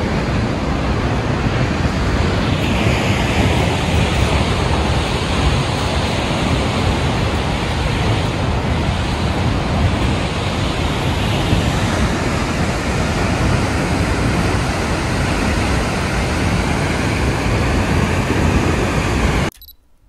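Steady, loud rushing of a large waterfall, an even wash of noise with no pauses; it cuts off abruptly near the end.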